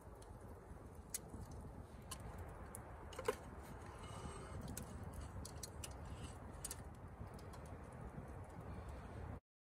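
Wood campfire crackling, with irregular sharp snaps and pops over a steady low rumble. One louder sharp knock with a short ring comes a little over three seconds in, and the sound cuts off abruptly just before the end.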